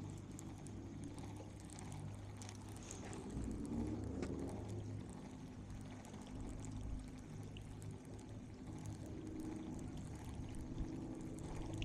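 Water lapping and trickling against the boat, over a steady low hum.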